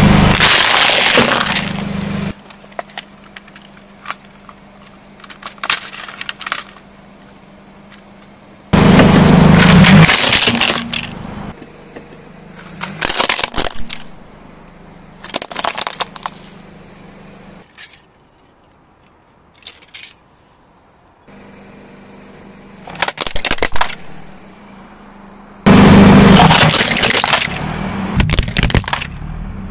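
A car tyre rolling over and crushing plastic toys and dry penne pasta, loud crunching and cracking of plastic. There are three long, loud crushes, one just at the start, one about nine seconds in and one near the end, with scattered smaller cracks and snaps between them.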